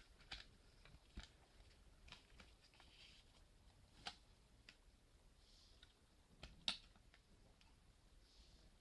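Plastic CD jewel case being handled: faint scattered clicks and taps. The sharpest click comes about two-thirds of the way through, as the disc is pulled off the tray's centre hub.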